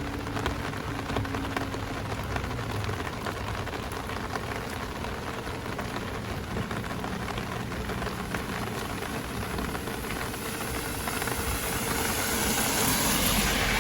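Heavy rain falling and pattering on an umbrella: a dense, steady hiss of drops that swells louder toward the end.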